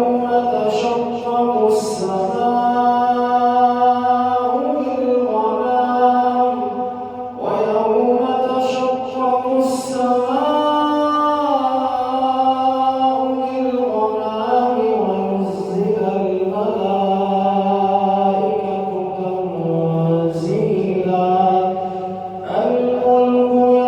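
A man's voice reciting the Quran in a melodic chanted style, with long held phrases whose pitch rises and falls. He pauses for breath about seven seconds in and again near the end.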